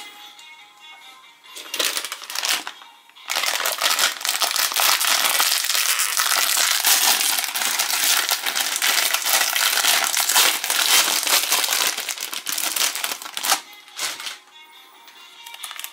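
Plastic snack wrapper of a Chipicao croissant being torn open and crinkled: a brief rustle about two seconds in, then about ten seconds of continuous crinkling.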